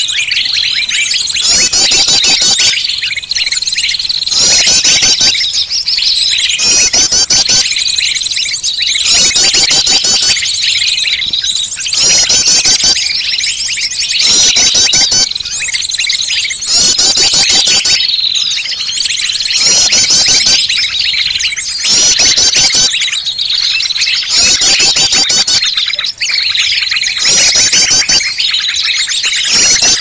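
Bird-lure recording: a dense, loud mix of high-pitched songbird chirps and calls played to draw wild birds in. Rapid trills recur about every two seconds over a steady high whistle.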